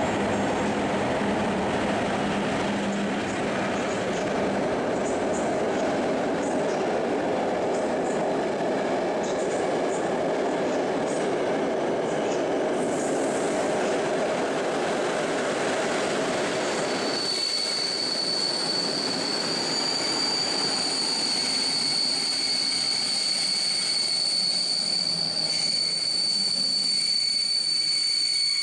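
Passenger train hauled by an EP08 electric locomotive rolling into an underground station platform, its coaches rumbling steadily over the rails. About 17 seconds in, a high steady squeal of the brakes sets in and holds as the train slows to a stop.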